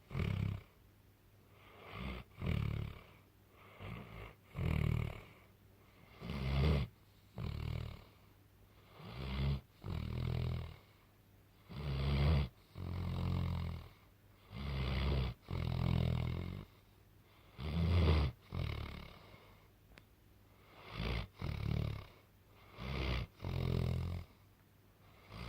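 Loud snoring: a deep rasping snore on each breath, mostly in pairs about every two and a half to three seconds, with quiet gaps between.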